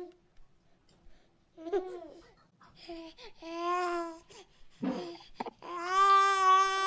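A baby babbling and cooing in short high-pitched sounds, with two long drawn-out vowel calls, one about halfway through and a louder one near the end.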